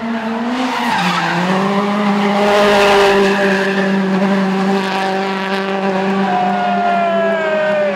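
A World Rally Car's turbocharged four-cylinder engine held at high revs on a stage, with tyres sliding. After a brief dip about a second in, the note holds steady, and one part of it falls in pitch near the end.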